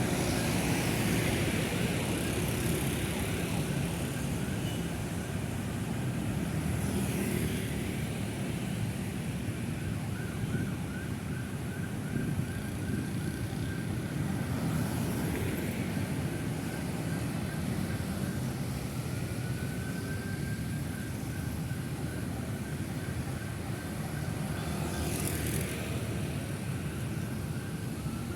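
Busy city road traffic: a steady rumble of car, bus and motorcycle engines, with vehicles swishing past every few seconds and a brief rising engine whine about two-thirds of the way through.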